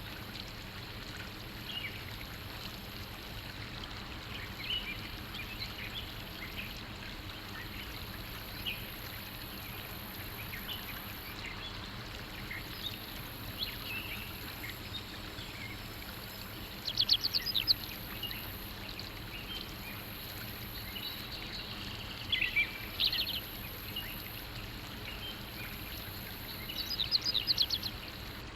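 Birds chirping and calling over a steady rushing background noise. Short louder bursts of rapid chirps come a little past the middle and twice more toward the end.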